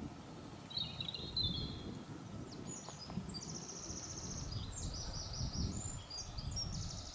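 Small songbird singing: a short high phrase about a second in, then from about two and a half seconds a run of high, rapid trilled phrases, over a low rumble.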